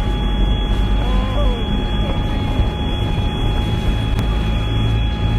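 Tank driving at speed, its engine and tracks making a steady, heavy rumble with a constant high whine over it.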